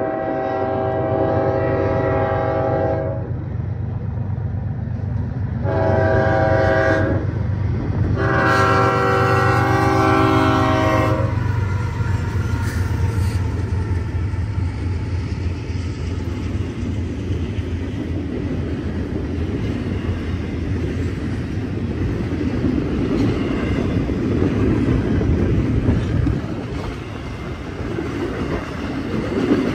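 Freight locomotive air horn sounding three blasts, from NS 8098, a GE ES44AC: the end of a long blast, a short one, then a long one of about three seconds, over the diesel's low steady drone. After that the train rolls past, its wheels and cars making a steady rumbling rail noise.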